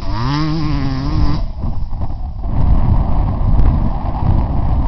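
Pit bike engine revving up and down as the bike rides off, its pitch rising and falling; after about a second and a half the engine note fades and wind rumble on the microphone is left.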